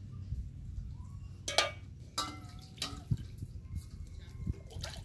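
Metal cookware being handled: a large metal tray and pots clinking and knocking several times, the sharpest clink about a second and a half in, with water splashing and dripping.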